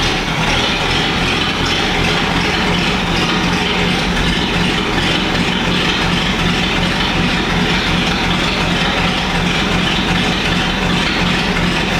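1951 Packard's straight-eight engine idling steadily.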